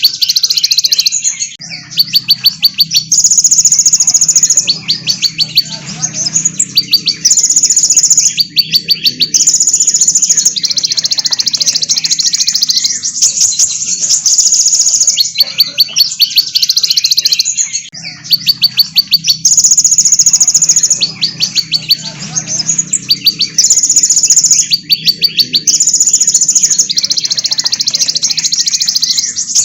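Small songbirds, sunbirds among them, singing high, very fast trills and rapid rattling bursts of notes one after another, the phrases repeating.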